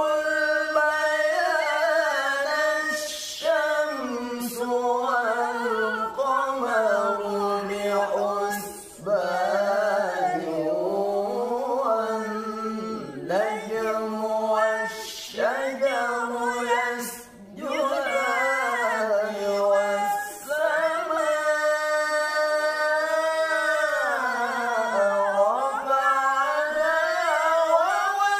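Unaccompanied Quran recitation in maqam bayati, sung by male and female voices in long, ornamented held phrases with short breaks for breath.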